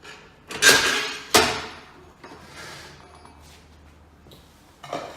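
Gumball machine globe and hopper assembly being set onto the machine body: a scraping clunk about half a second in and a sharper knock a moment later, then quieter handling and a short knock near the end.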